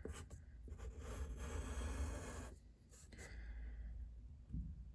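A pen drawing on paper: a few short strokes, then one long scratching stroke starting about a second in and lasting nearly two seconds, followed by lighter strokes.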